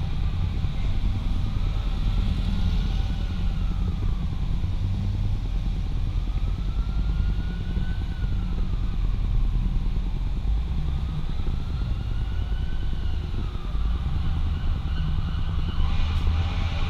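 A 2005 Jaguar XJ8 L V8 driving at low speed, heard from its hood: a steady low rumble of engine and road noise. A faint whine rises and falls three times.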